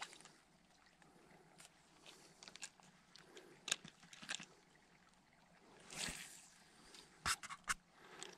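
Spinning reel and rod being handled: a few sharp clicks of the reel, then a brief swish about six seconds in as the rod is cast, followed by a quick run of clicks from the reel.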